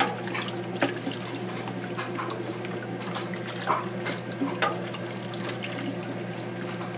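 Warm milk being stirred in a pot: liquid swishing, with light clinks of the utensil against the pot now and then, over a steady low hum.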